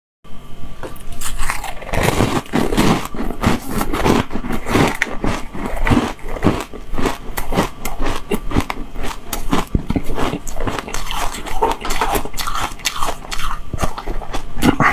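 Close-miked crunching and chewing of frozen green milk ice: a dense, continuous run of crisp, crackly crunches, several a second.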